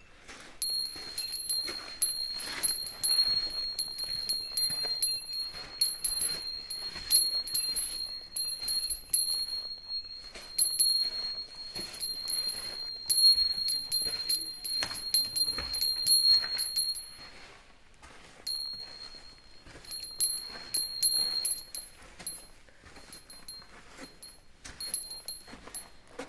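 A small bell, likely a bear bell carried by the walker, jingling in a steady rhythm in time with footsteps on a dirt and gravel path. It stops briefly twice when the walking pauses and grows fainter and more sparse near the end.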